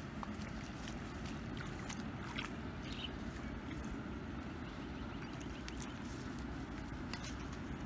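Hands working through shallow muddy water and grass, giving small scattered splashes and clicks over a steady low rumble.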